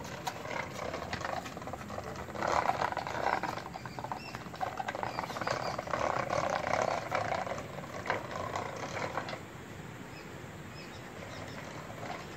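Hard wheels of a small ride-on toy tractor rolling and rattling over a rough concrete floor. The clatter grows loud about two seconds in and dies down after about nine seconds.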